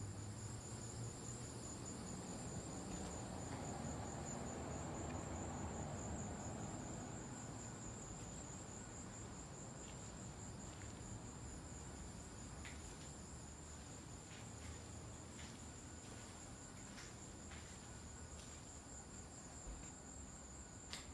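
A steady, high-pitched insect chorus of crickets or cicadas trilling without a break. A low rumble sits under it for the first several seconds, and a few faint ticks come later.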